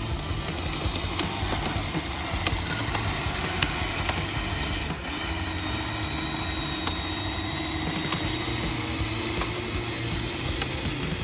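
Radio-controlled model construction machinery running: a steady motor hum with scattered gear clicks, and a whining tone that sets in about halfway through and stops just before the end.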